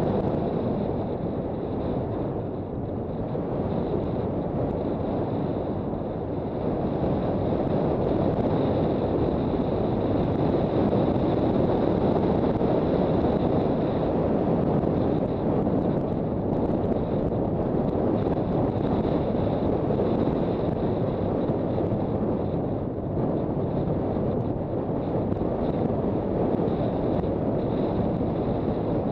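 Steady wind rush buffeting the microphone of a motorcycle being ridden at speed, with road and engine noise blended underneath.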